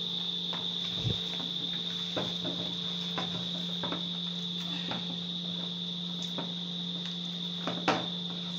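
Hands kneading corn dumpling dough in a bowl: scattered light knocks and taps, a sharper knock about a second in and another near the end, over a steady high-pitched whine and a low hum.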